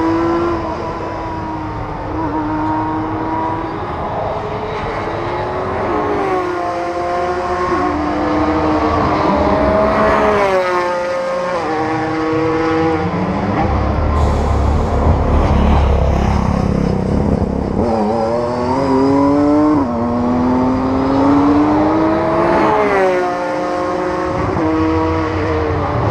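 Touring car racing engines revving, their pitch climbing and then dropping again and again as they run up through the gears. A deeper low rumble comes in about halfway through.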